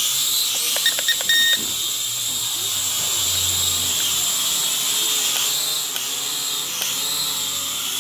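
Syma X5HW toy quadcopter's small electric motors and propellers whining steadily in flight, the pitch dipping briefly now and then as the throttle changes. A few short clicks come about a second in.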